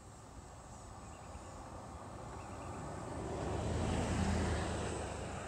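A vehicle passing by, its sound swelling to a peak about four seconds in and then fading away.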